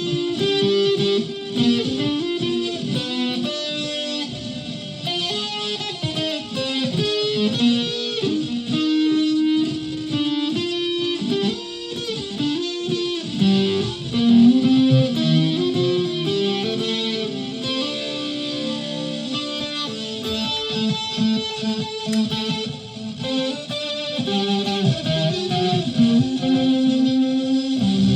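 Flight Centurion solid-body electric ukulele played through a home-built clone effects pedal and a PA speaker: a run of single notes moving up and down in pitch.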